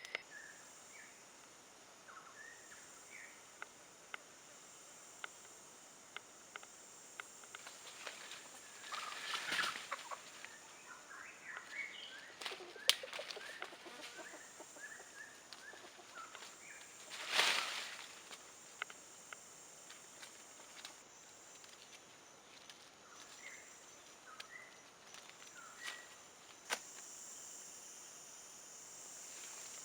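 Outdoor forest ambience: birds chirping in short scattered calls over a steady high insect drone, broken by two loud rustling bursts, one about nine seconds in and one about seventeen seconds in, and a few sharp clicks.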